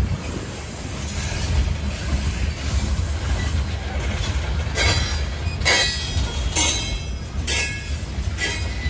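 Freight train of CSX open-top hopper cars rolling past close by: a steady low rumble of wheels on rail. From about five seconds in, sharp wheel clacks come about once a second, some with a brief metallic squeal.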